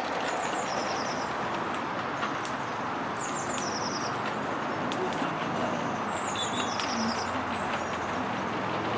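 Live-steam 16 mm gauge model locomotive running slowly with a steady hiss. A small bird calls three times over it, each call a quick run of high notes.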